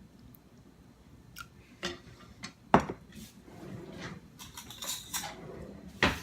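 Utensils clinking and scraping against dishes: a few sharp clinks, the loudest about three seconds in and another near the end, with softer scraping between.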